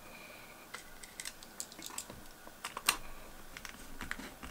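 Scattered light clicks and ticks of a small hand screwdriver working metal screws on a graphics card's water block and backplate, with one louder click about three seconds in.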